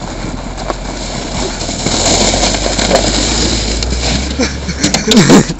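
Car engine running as it tows a sled across packed snow, under a steady rushing noise that grows louder about two seconds in. A loud shout from a person near the end.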